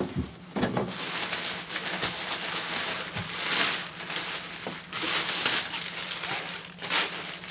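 Clear plastic bag crinkling and rustling unevenly as it is handled and pulled off a vacuum cleaner's main unit.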